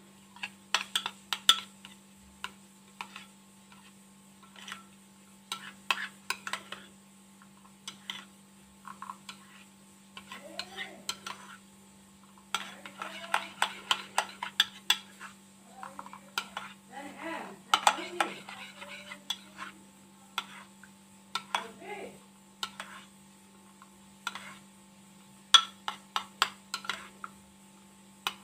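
Metal spoon stirring a thick paste in a bowl, with irregular sharp clinks and scrapes of the spoon against the bowl, busiest in the middle stretch.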